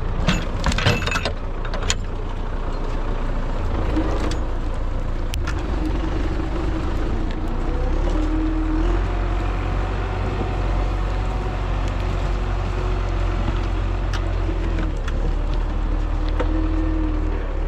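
MTZ-82 tractor's diesel engine running steadily, with a deep rumble and its tone wavering a little. A few sharp metallic clicks and rattles come in the first two seconds.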